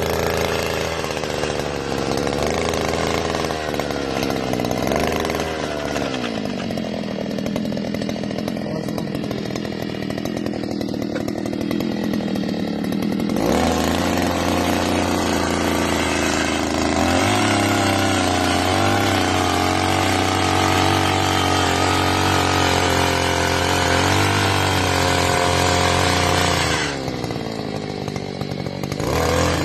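Petrol earth auger's small engine running loud and continuously, its speed changing. It slows about a sixth of the way in, revs up sharply about halfway through, and dips briefly near the end before picking up again.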